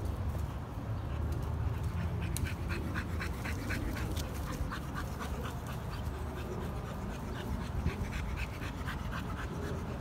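A dog panting rhythmically, about three or four quick breaths a second, starting about two seconds in and stopping just before the end, over a steady low rumble.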